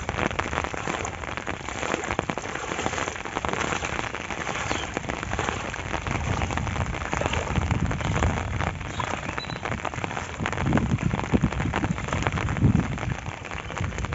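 Steady rain falling, a dense patter of drops, with a few low rumbles in the second half.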